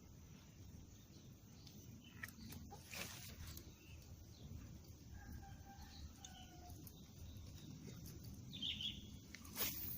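Quiet outdoor ambience with a steady low rumble, a few faint bird chirps in the second half, and two sharp clicks, one about three seconds in and a louder one near the end.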